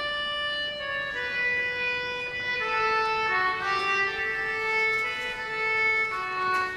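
Instrumental music: a slow melody of long held notes on a single melodic instrument, with no beat or percussion.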